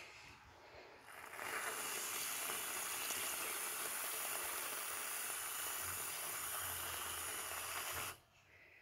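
Aerosol can of whipped cream spraying: one continuous, steady hiss that starts about a second in and lasts about seven seconds, cutting off suddenly near the end.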